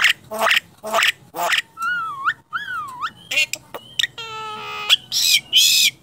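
Caged myna calling through a varied run of sounds: quick speech-like syllables, then two swooping whistles, a nasal buzzing note held for most of a second, and loud harsh squawks near the end. The speech-like chatter fits a talking myna mimicking voices.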